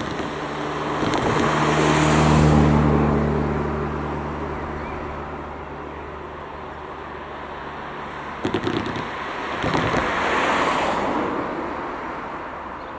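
Two cars drive over a level crossing one after the other, their tyres thumping over the rails and then passing close by; the first passes about two seconds in with a steady engine hum, the second thumps over the rails about eight seconds in and passes near the end.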